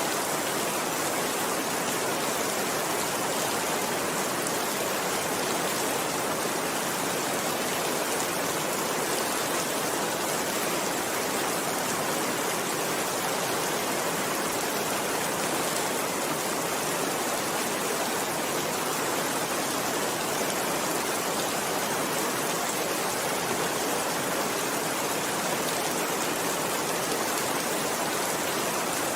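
Steady rain falling, a continuous even hiss with no distinct drops, thunder or other events.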